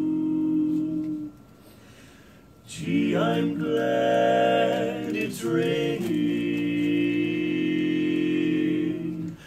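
Male barbershop quartet singing a cappella in four-part harmony. A held chord stops about a second in, and after a short pause the song begins about three seconds in with long sustained chords.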